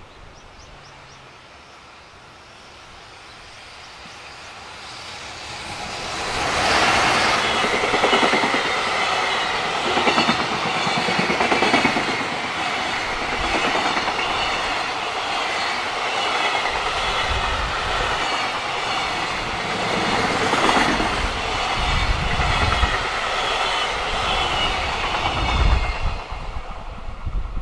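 A JR Freight container train passes close by. Its sound grows over the first few seconds and becomes loud as the electric locomotive goes by, about six to seven seconds in. Then a long string of container wagons runs past with a steady rumble and the clickety-clack of wheels over the rail joints, until the last wagon passes near the end.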